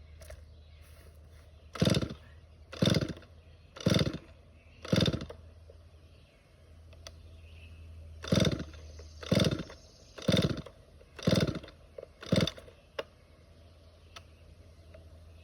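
Chainsaw being pull-started without catching: nine short bursts of the engine turning over, about one a second, in a run of four and then, after a pause, a run of five.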